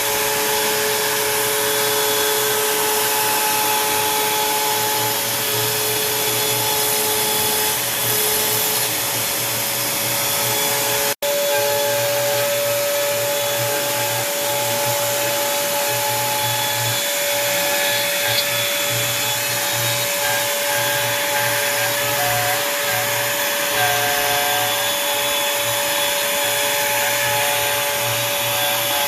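Onefinity Woodworker CNC router cutting wood: the router spindle runs with a steady whine over a constant rushing noise, and the pitch shifts a little as the bit moves through the cut. The sound cuts out for an instant about 11 seconds in.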